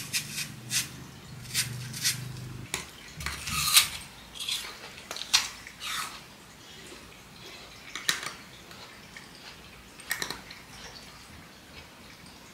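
Metal cutlery clinking against dishes: a quick run of sharp clinks and taps in the first six seconds, then a few scattered ones. A low hum sits under the first three seconds.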